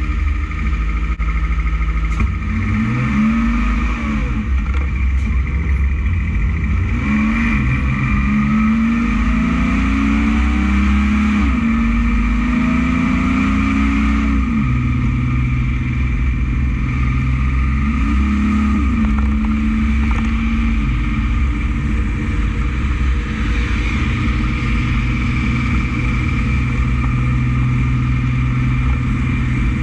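Loaded dump truck's diesel engine pulling from inside the cab with the window up, its pitch climbing and dropping back several times as it shifts up through the gears.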